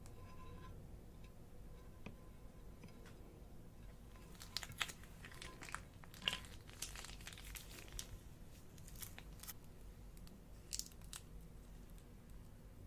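Scattered crinkling and crackling handling sounds, in quick irregular clusters from about four seconds in until shortly before the end.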